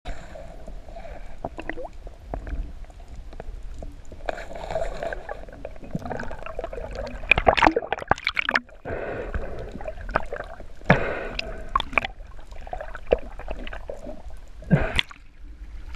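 Underwater sound heard through a submerged camera: muffled sloshing and gurgling water with irregular knocks and clicks, a few louder ones around the middle and near the end.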